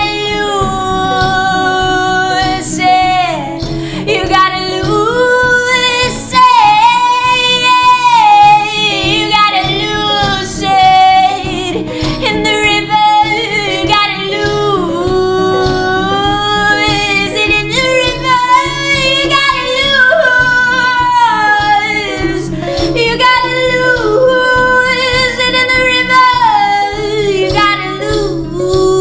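A woman sings a sliding, held melody over strummed acoustic guitars in a live acoustic performance.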